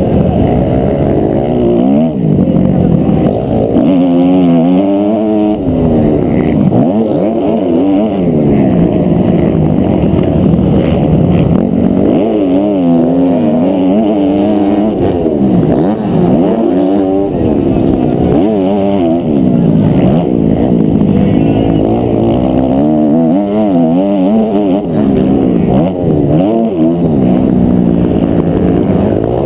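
250 cc four-stroke motocross bike engine heard close up from the bike itself, revving hard. The engine note climbs and drops again and again as the rider accelerates, shifts and backs off around the dirt track.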